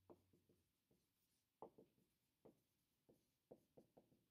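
Faint strokes of a dry-erase marker writing on a whiteboard: about a dozen short scratches and taps, the clearest one a little past a second and a half in.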